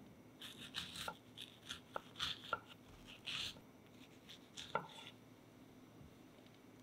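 Chef's knife slicing fresh strawberries on a wooden cutting board: soft cuts with light knocks of the blade on the board, a few sharper than the rest. It stops about five seconds in.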